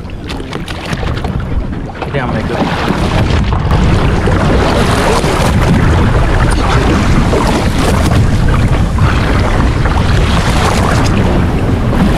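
Sea water splashing and rushing along a boat's hull, with wind buffeting the microphone. The noise builds over the first few seconds, then holds steady and loud.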